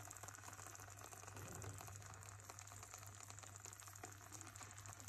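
Faint, steady sizzling of eggs, cheese and sausage slices frying in oil in a pan, over a low steady hum.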